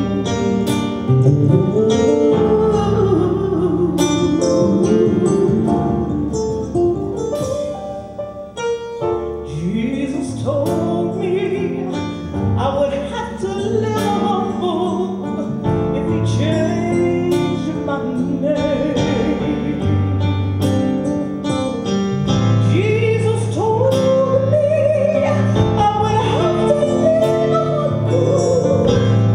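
Live gospel band playing: a woman sings with a wide vibrato over keyboard, sustained low bass notes and drums with cymbal strikes.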